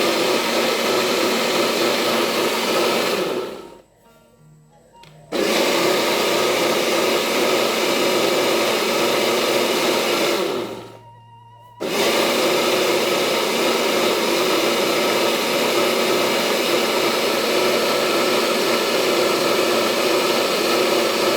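Electric blender running on a thick mix of garlic, ginger, turmeric and palm sugar. It spins down and stops twice, about three seconds in and again about ten seconds in, and starts up again sharply after a second or two each time.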